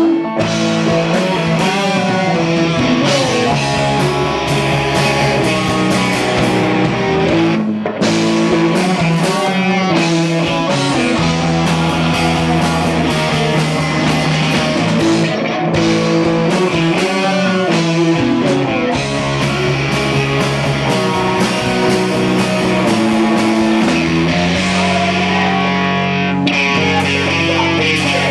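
A rock band playing live: loud, guitar-driven rock with bass and drums, with a brief stop about eight seconds in.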